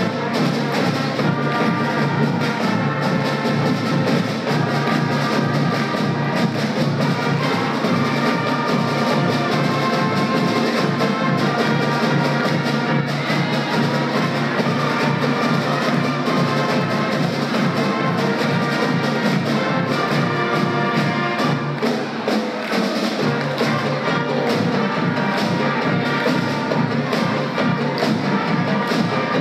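A school pep band plays a brass-and-woodwind tune without a break: trumpets, trombones, saxophones, clarinets and a sousaphone.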